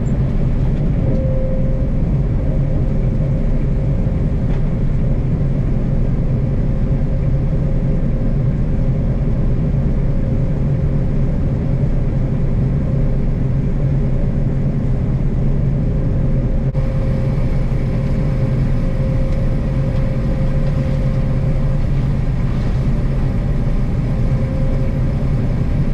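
Harvest machinery running steadily: a constant engine drone with a steady low hum.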